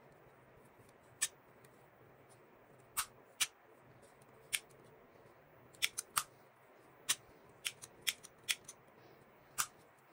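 About a dozen sharp, irregularly spaced metallic clicks from a metal torch lighter being worked by hand, as its flip-up lid and fittings snap open and shut.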